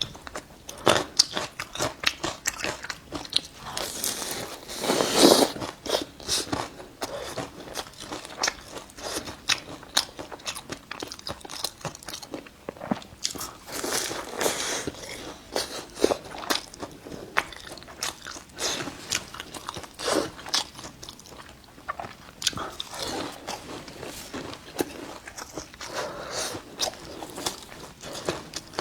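Close-miked biting and chewing of a meat-filled mooncake, its flaky pastry crunching in dense, irregular crackles, with a louder bite about five seconds in.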